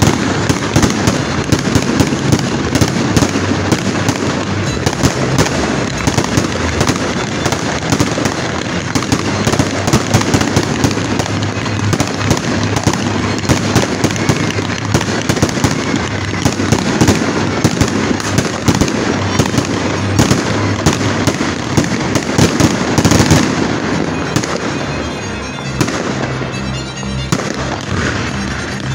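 A fireworks display: dense, continuous bangs and crackling from shells and cakes bursting, thinning out a little near the end. Music plays underneath.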